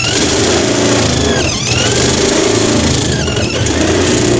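Cordless drill with a step drill bit cutting through the steel body panel of a 1960 Chevy Impala to open an antenna hole. The motor runs loud and steady, dipping in pitch and picking up again three times as the bit bites into the metal.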